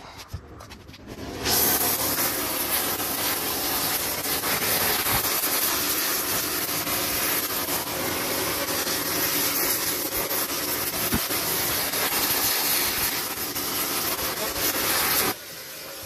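Oxy-fuel gas torch flame hissing steadily while it heats the bent steel front mounting plate of a skid steer, softening it so it can be bent back straight. The hiss starts abruptly about a second and a half in and cuts off abruptly near the end.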